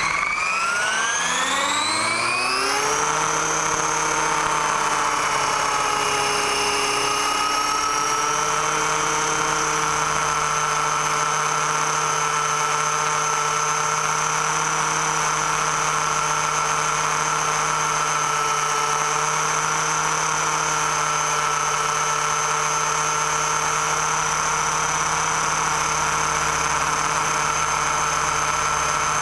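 Electric motor and propeller of a radio-controlled model plane running up to speed, its whine rising in pitch over the first few seconds and then holding as a steady high whine.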